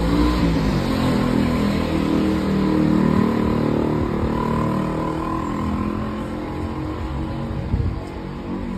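A motor vehicle's engine running in the street, growing louder to about three seconds in and then slowly fading, with a short knock near the end.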